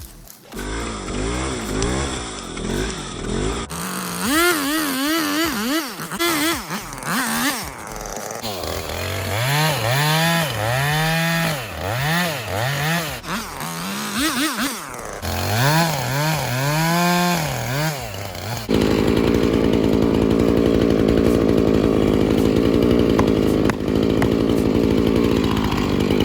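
A two-stroke chainsaw revved up and down again and again, its pitch rising and falling in roughly one-second swells. About two-thirds of the way in it changes abruptly to a steady, louder run at high revs.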